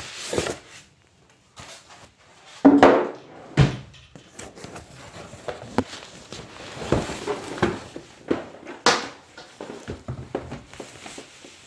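A cardboard TV carton being opened by hand: flaps pulled up and scraped, with a loud cardboard thump about three seconds in and scattered knocks and clicks. Near the end, a plastic bag wrapped around the TV rustles as it is lifted out.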